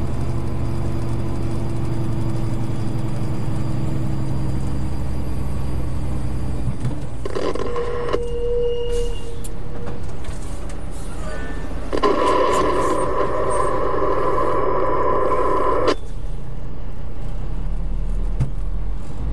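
Car cabin engine and road rumble that drops away about seven seconds in as the car slows. A brief steady tone sounds near eight seconds, and a long horn blast lasts about four seconds from around twelve seconds in.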